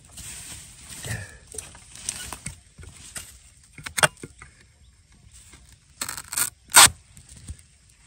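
Rustling and scraping in dry bamboo litter while digging around wild bamboo shoots, with a sharp knock about four seconds in and a louder cluster of hits near the end, the last of them the loudest.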